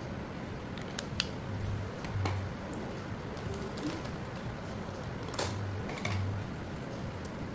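Steady low hiss and hum with a few sharp small clicks and taps, the loudest about five and a half seconds in.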